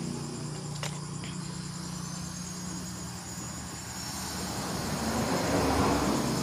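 Crickets chirping steadily at a high pitch, with a vehicle passing that swells up about five seconds in and fades near the end. A couple of light clicks about a second in.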